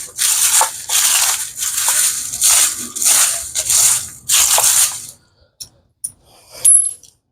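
Loose metal hardware, washers and bolts, rattling as it is shaken and rummaged through, in repeated bursts about twice a second. The rattling stops about five seconds in, followed by a few faint clicks.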